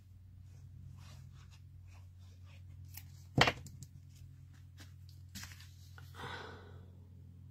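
Paper crafting at a desk: light rustles and ticks of cardstock being handled while liquid glue is put on a small card panel, a sharp knock about three and a half seconds in as the plastic glue bottle is set down on the desk, and a brief paper rustle near the end as the panel is pressed onto the card.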